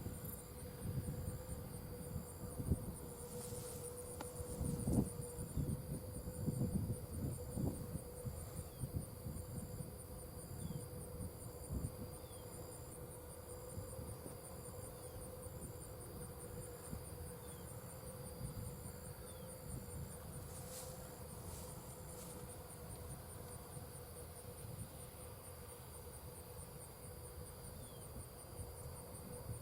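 Insects, crickets or katydids, chirping in several steady high-pitched trills, one of them pulsing regularly, over a steady hum and a low uneven rumble.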